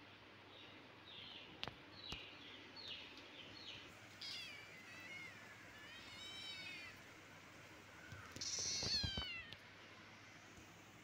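Kitten mewing repeatedly: a run of short, high mews, then three longer meows that fall in pitch, the loudest about eight and a half seconds in.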